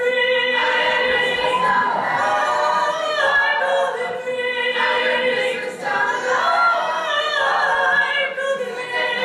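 Mixed-voice a cappella choir singing held chords, with one male voice at a microphone over the group.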